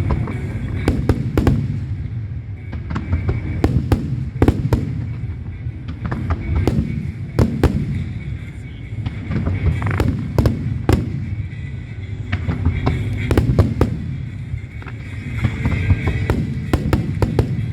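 An aerial fireworks display with shells bursting one after another in sharp bangs, some in quick clusters, over a continuous low rumble.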